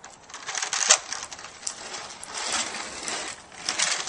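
Waveboard caster wheels rolling over rough asphalt: a gritty rolling noise that swells and eases as the rider twists the board, with a few sharp clacks in the first second as he steps onto it and pushes off.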